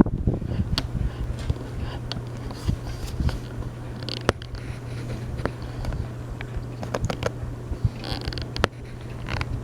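Harbor Breeze Pulsar ceiling fan running on high, its motor giving a steady low hum. Irregular clicks and scrapes sound over it, with a thump at the very start.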